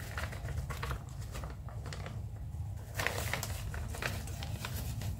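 Plastic flour bag crinkling and rustling as glutinous rice flour is poured from it into a steel pot, in scattered crackly bursts over a low steady background hum.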